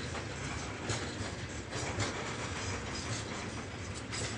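Heavy mixed freight train of open wagons and tank cars rolling past, its wheels clicking over rail joints every second or so over a steady rumble.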